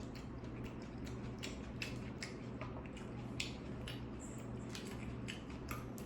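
Close-miked chewing of a Subway tuna sandwich: irregular short crunches and clicks, several a second, over a steady low hum.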